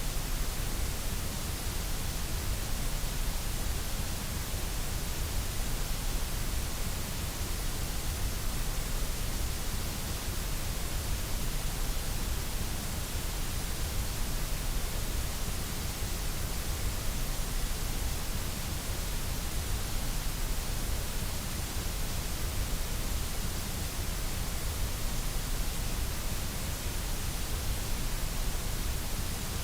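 Steady white noise: an even, unchanging hiss with a low rumble beneath it.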